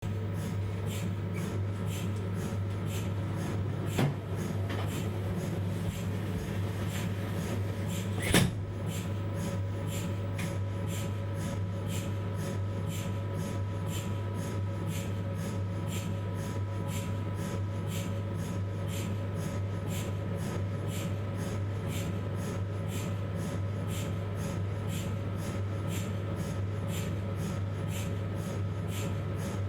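Philips 1.5 T MRI scanner idling between sequences: a steady low hum with a few faint steady tones and light ticking about twice a second, and two sharp clicks, one about four seconds in and one about eight seconds in.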